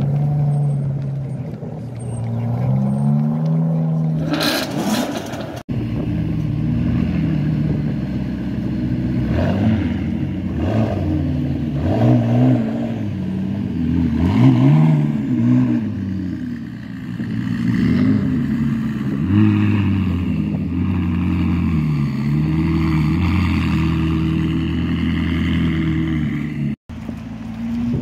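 Sports-car engines moving off at low speed, first an Aston Martin, then a McLaren. The engine note rises and falls with the throttle in short blips. The sound breaks off abruptly about six seconds in and again just before the end.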